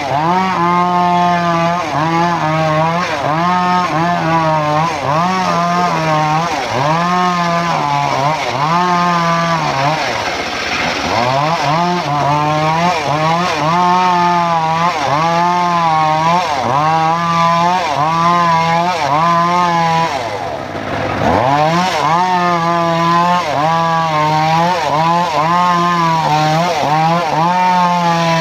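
Engine-driven home-built circular sawmill ripping a log lengthwise into boards. The engine note sags and recovers about once a second under the cutting load, and drops deeply twice, around ten and twenty seconds in.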